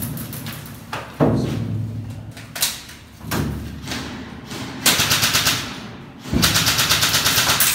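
M4-style airsoft rifle firing about five short bursts of rapid shots, about ten a second, with pauses between. The last and longest burst lasts about a second and a half, near the end. Each burst echoes in the bare concrete room.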